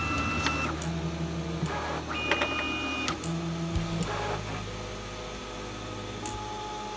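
Stepper motors of a HevORT DIY 3D printer running its automatic bed-levelling routine, in which three Z motors move the print bed while it is probed. They give steady whines that start, stop and change pitch in steps every second or so, with a few sharp clicks. After about four seconds they settle into a quieter, steadier hum.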